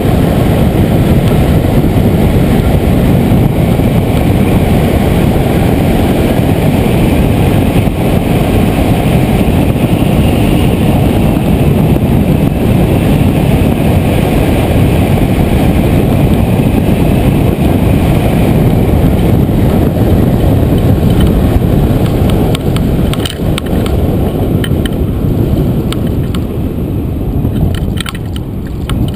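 Wind rushing hard over the wing-mounted camera's microphone as a hang glider flies, a loud steady buzzing noise likened to a mosquito. Near the end it falls away as the glider slows to land, with a few sharp knocks.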